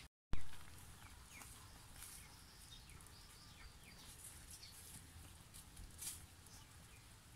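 Faint chirps of birds and chickens in the background. About a third of a second in there is a sudden loud knock that fades quickly, and near 6 s there is a brief scrape of a metal ladle stirring in the pan.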